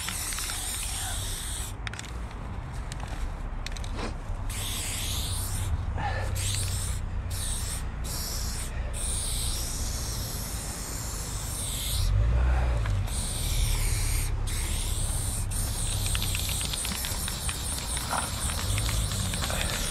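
Aerosol spray-paint can hissing as paint is sprayed onto a wall, in bursts of one to a few seconds with short breaks between them. A low rumble runs underneath and swells about twelve seconds in.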